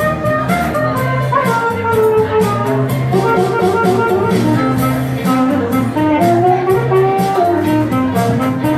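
Saxophone improvising a jazzy melody through a PA, over a backing track with a steady bass line and beat.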